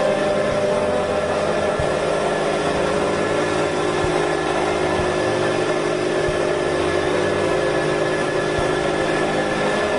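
Golmatic CNC mill running as a small end mill cuts metal between the webs of a model six-cylinder boxer engine crankshaft: a steady machining whine with several held tones over a constant noise.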